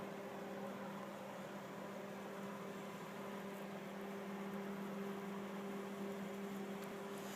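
A steady, distant mechanical hum held on a low tone, with a second tone an octave above, over a faint hiss. It seems to come from the sky; the recordist thinks it is probably a vac truck running up on the valley rim.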